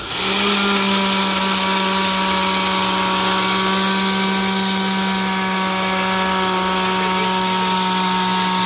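Electric kitchen blender switched on and running steadily, a constant motor hum under loud whirring, blending a chile salsa.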